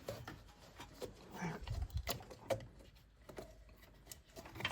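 Faint scattered clicks and light knocks of hands handling parts under the car, with a few soft low thuds.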